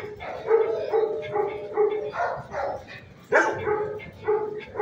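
Dog barking repeatedly, about three barks a second, with one louder bark about three and a half seconds in.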